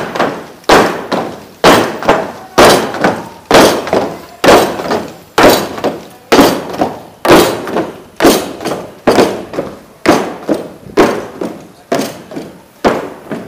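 A squad of soldiers marching in step on a wooden boardwalk: heavy boots striking the planks together in a slow, even beat of about one loud thud a second. Each thud rings briefly, with a few smaller, less even footfalls in between.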